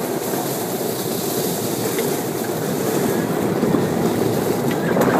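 Bad Boy Buggy off-road cart travelling over a gravel-and-dirt trail: a steady noise of tyres on loose gravel and the cart rattling, growing slightly louder toward the end.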